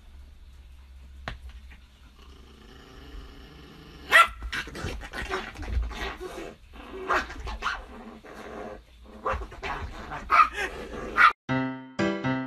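Small poodle-type dog growling, then barking loudly several times from about four seconds in. Music takes over near the end.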